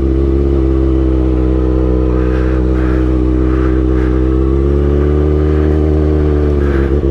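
Kawasaki ZX-6R 636 inline-four running through a Racefit aftermarket exhaust, holding steady, fairly low revs while riding. The pitch rises slightly about five seconds in and dips briefly near the end.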